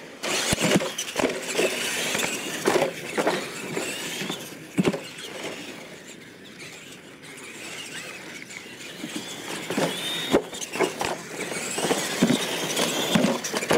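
Two radio-controlled monster trucks racing over a dirt track, their electric motors whining and rising and falling with the throttle. There are sharp knocks every few seconds as the trucks hit ramps and land.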